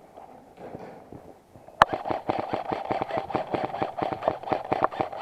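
Airsoft gun fire: a sharp crack a little under two seconds in, then a rapid, continuous string of shots, around eight to ten a second, over a steady hum.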